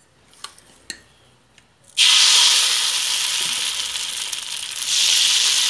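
Tender-coconut (elaneer) appam batter hitting a hot nonstick appam pan and sizzling loudly, starting suddenly about two seconds in and swelling again near the end. A few faint clicks come before it.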